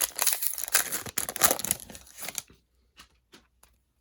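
Foil wrapper of a trading-card pack being torn open and crinkled, a dense crackling rustle for about two and a half seconds. A few faint light taps follow near the end.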